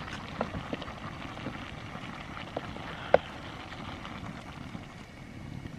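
Water poured from a plastic bottle into a pot of simmering vegetables on a portable gas cartridge stove, over the stove's steady burner hiss. A few small clicks, and one sharp click about three seconds in.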